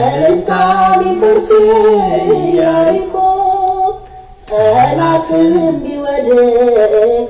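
A man singing an unaccompanied Ethiopian Orthodox hymn solo, with long held notes that bend and wander in pitch, and a short breath-break about four seconds in.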